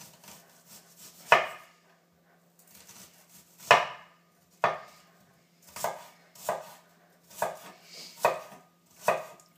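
A large kitchen knife chopping red onion on a wooden cutting board: about eight separate chops at uneven gaps, the two loudest about a second and a half and nearly four seconds in.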